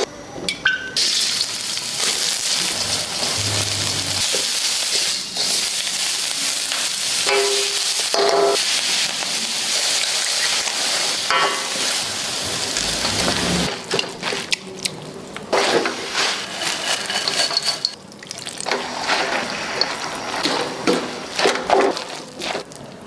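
Crab kottu frying on a hot pan: a loud, steady sizzle broken by many sharp clicks and clatters of utensils working the food, with a few dips in level after the middle.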